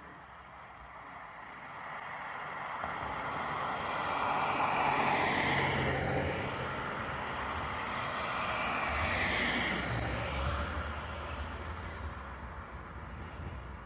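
Road traffic passing, swelling twice, about five and about nine seconds in, over the low hum of an electric tram pulling away from the stop and slowly approaching.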